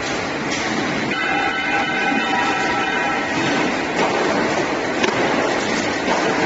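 5-axis CNC wire bending machine running: its servo motors whine in steady tones that change pitch every second or so, over a continuous metallic clatter with a few sharp clicks.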